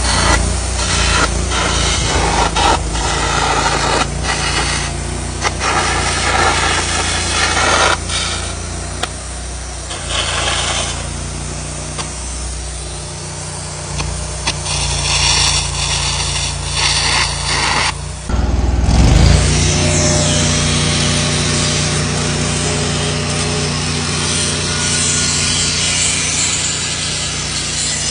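Air carbon arc gouging: a harsh, crackling hiss of the arc and air blast as it gouges out cracks in an excavator bucket, over the steady running of an engine-driven welder. About two-thirds of the way through, the engine surges and settles into a new steady note.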